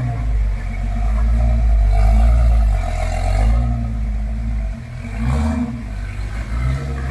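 Off-road vehicle's engine running and revving up and down under load, with a low rumble. It eases off about five seconds in, then picks up again.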